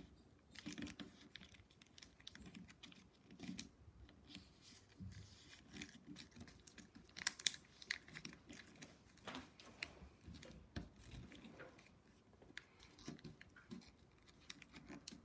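Origami paper being folded and creased by hand against a wooden tabletop: faint, scattered rustles and crinkles, with a couple of sharper paper clicks about seven and nine seconds in.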